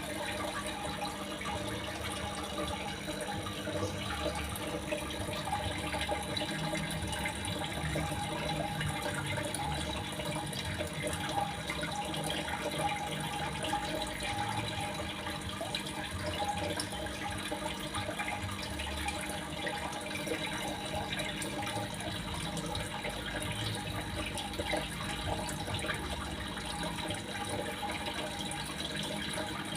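Running water trickling and splashing steadily, without a break, the kind of water sound played as therapy for songbirds that have stopped singing.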